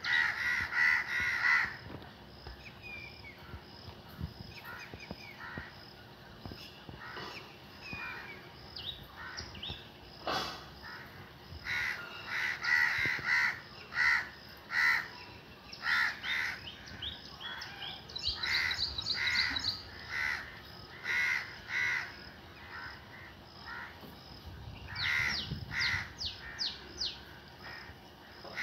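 Crows cawing over and over in bouts of harsh calls, with quieter gaps between the bouts.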